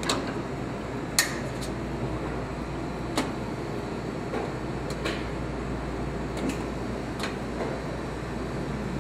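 Steady hum of a commercial espresso machine with about six sharp metallic clicks and clinks at irregular intervals as portafilters are handled at the group heads.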